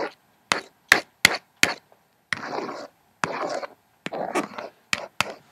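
Hairbrush swishing close to the microphone in a series of short strokes, each starting with a sharp click, at uneven intervals about half a second to a second apart.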